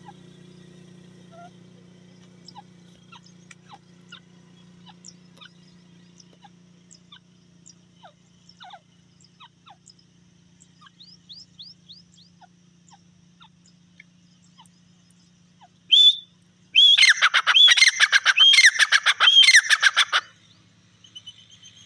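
Francolin calling loudly: one short call about 16 seconds in, then a fast run of repeated high call notes lasting about three seconds. Before it, only faint scattered chirps of small birds.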